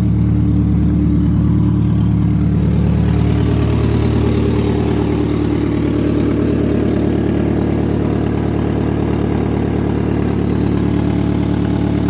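Car engine idling steadily while connected by jumper cables to recharge a van's dead battery, its idle easing slightly lower about four seconds in.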